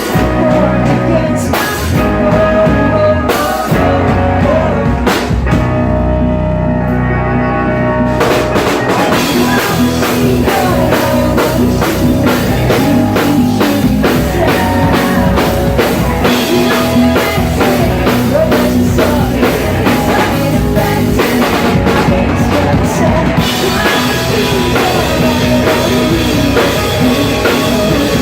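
Live rock band playing: drum kit, electric guitars and bass. The cymbals drop out for a few seconds about a fifth of the way in, then the full band comes back in with fast, dense drumming.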